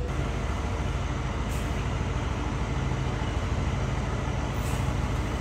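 A truck engine idling steadily, with two faint short hisses, one about a second and a half in and one near the end.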